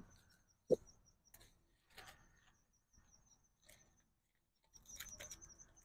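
Faint, steady high chirping, several short chirps a second, with scattered soft rustles and snaps of leaves and twigs as hands work through a shrub's branches. A short low sound about three-quarters of a second in is the loudest moment.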